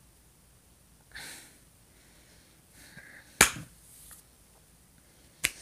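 A person sniffing twice in short, hissy breaths. There is a sharp click about three and a half seconds in, the loudest sound, and a second click near the end.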